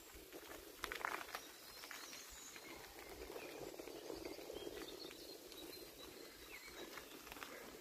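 Faint rustling and crunching in dry fallen leaves, with a few sharp clicks about a second in, over quiet woodland ambience.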